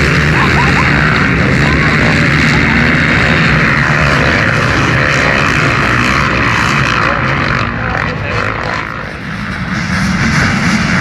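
A pack of motocross bikes running hard together, a dense, steady mass of engine noise. It fades briefly about eight seconds in, then comes back up loud near the end.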